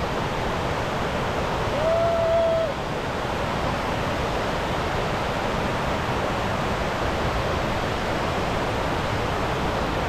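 Steady rush of Fukiware Falls, river water pouring over wide rock ledges and racing across the rock bed. About two seconds in, a short held tone sounds over it for under a second.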